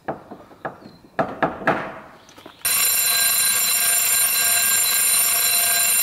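A few knocks on a heavy wooden door. About two and a half seconds in, a Channel Safety Systems electric fire alarm bell starts suddenly and rings continuously, the loudest sound here.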